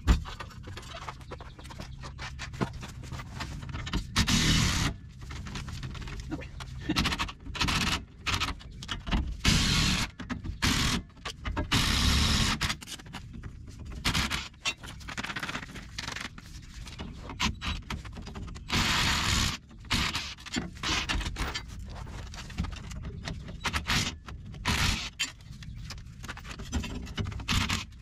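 Scraping and clanking of hand tools and metal suspension hardware, in short irregular bursts, several lasting about a second.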